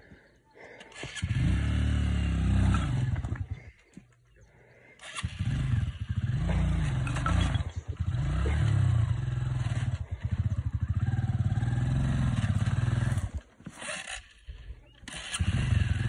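Honda CRF125 dirt bike's single-cylinder four-stroke engine revving up and down in bursts while climbing, falling quiet twice for about a second before running again.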